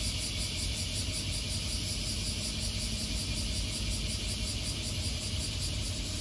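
Diesel engine of an Isuzu city bus idling steadily at a stop, a low even rumble with a steady high hiss over it.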